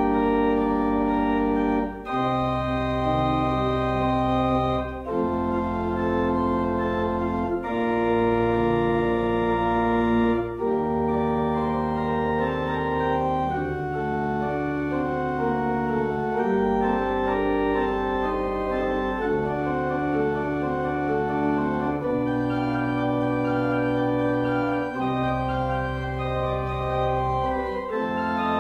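Organ music: slow, sustained chords over held bass notes, changing every two to three seconds.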